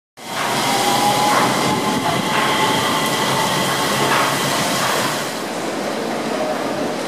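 Mitsubishi Crystal Mover rubber-tyred LRT car running along its concrete guideway: a steady rumble of tyres with a high electric whine. It starts abruptly and eases off a little after about five seconds.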